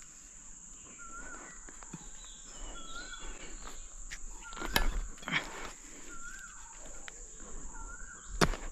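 Steady, high-pitched drone of insects in the jungle, with short chirping calls about once a second. Two sharp knocks or snaps stand out, one about halfway through and one near the end.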